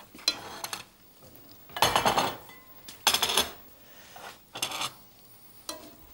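A metal serving spoon scraping and clinking against a pan and a china plate as food is dished up, in about five separate short strokes, the loudest about two seconds in.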